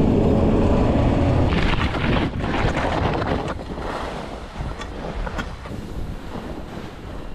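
A snowcat's engine runs steadily as it drives away, fading out about a second and a half in. Then skis scrape and hiss over crusty, tracked snow, with wind buffeting the microphone.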